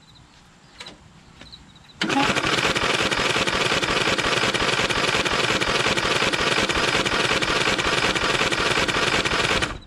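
Flathead lawn tractor engine being cranked over by its electric starter, with the spark plug out and a compression tester in the plug hole. It starts abruptly about two seconds in and runs steadily for nearly eight seconds before cutting off. The test shows only about 60 on the gauge, a reading the owner distrusts because of the automatic compression release.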